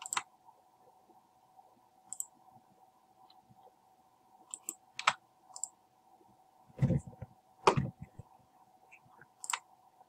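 Computer mouse clicks and keyboard key presses: a scattering of single sharp clicks, with two heavier knocks in the second half, over a faint steady hum.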